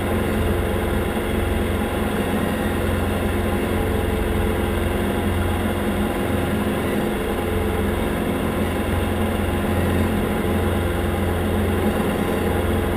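Diamond DA40 light aircraft's single piston engine and propeller running steadily at climb power after takeoff: a loud, even drone with a strong low hum and no change in pitch.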